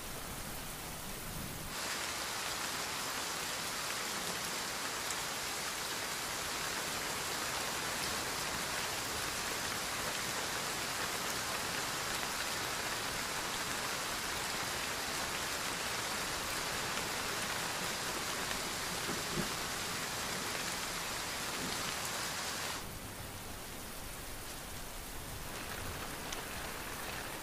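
Steady downpour of rain, an even hiss that gets louder about two seconds in and drops back down near the end.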